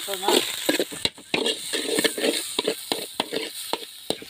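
Metal spoon stirring and scraping onions and tomatoes frying in oil in a metal pan, with a steady sizzle under repeated short scrapes and clicks of spoon against pan.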